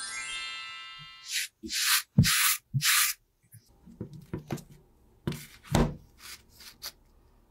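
A knife blade slicing through packed kinetic sand: four loud, gritty scraping strokes between about one and a half and three seconds in, then softer crunching and crumbling as the cut slices break and fall. At the very start a descending run of ringing tones sounds and fades.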